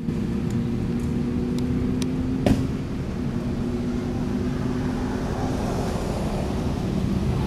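Steady low hum of an idling engine, with a single sharp click about two and a half seconds in.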